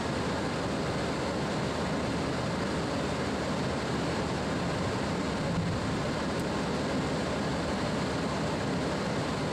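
Steady cockpit noise of a Boeing 767-300ER on its landing rollout: engine and airflow noise over a low rumble, unchanging in level.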